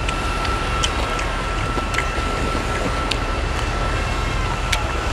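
Steady low wind rumble and hiss on the microphone, with a faint steady whine, broken by a few sharp crunches about a second apart as the crispy fried snapper tail is bitten.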